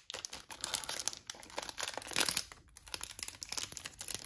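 Foil wrapper of a baseball card pack crinkling and tearing as hands peel it open, with a run of small crackles and a louder burst about two seconds in.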